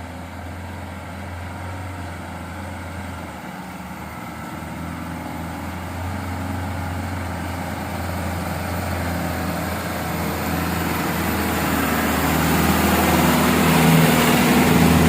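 Truck diesel engine running under load, getting steadily louder as the truck draws near.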